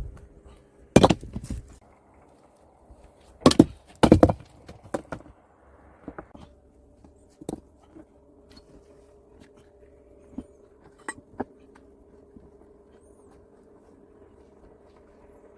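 Sharp knocks and thuds of hand work on wood or stone. Loud strikes come about a second in and twice more around three and a half to four seconds in, then lighter clicks and taps are scattered through the rest, over a faint steady hum.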